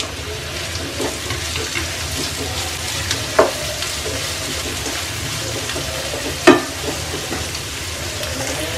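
Diced radish and onion frying in oil in a nonstick pan, a steady sizzle as a wooden spatula stirs them. Two sharp knocks of the spatula against the pan, about three seconds apart, the second louder.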